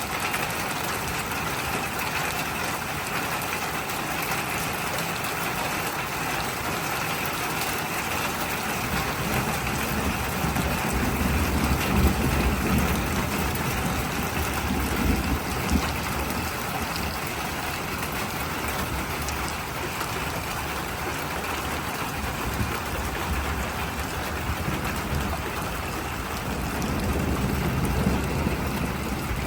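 Heavy rain falling steadily, an even hiss. A low rumble swells for several seconds about a third of the way in, and again near the end.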